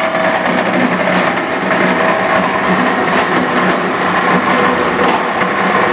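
Cumberland 20 hp plastic granulator running, a loud steady mechanical whir with a few faint steady tones; the machine has new bearings and sharpened blades.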